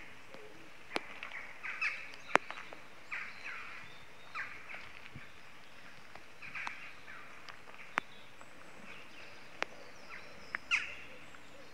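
Small birds chirping on and off over a light, steady hiss of rain, with a few sharp single ticks of dripping water.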